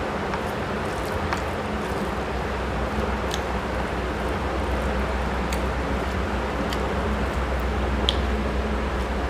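Fingers squishing and mixing curry-soaked rice, with wet eating and mouth sounds and a few sharp little clicks, over a steady hiss and low hum.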